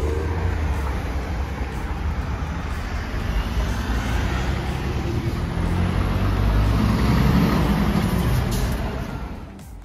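Road traffic on a busy multi-lane road: a steady rumble of cars, vans and trucks passing close by. It swells louder about six to eight seconds in as a heavy vehicle goes past, then falls away sharply near the end.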